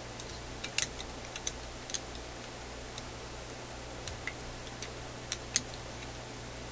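Scattered light clicks and taps, irregularly spaced, of a screwdriver and wires knocking against a radio's metal chassis as the wiring is handled, over a low steady hum.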